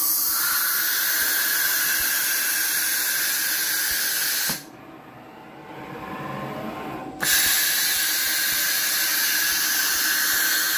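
Compressed air hissing at the spindle head of a home-built CNC router during an automatic tool change, as it puts back a drill and picks up an end mill. It comes in two long blasts, with a quieter gap of about two and a half seconds between them in which a faint rising whine is heard.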